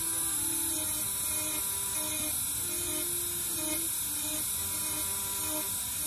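High-speed micromotor carving handpiece running steadily with a cone-shaped abrasive stone, grinding feather lines into a wooden bird carving.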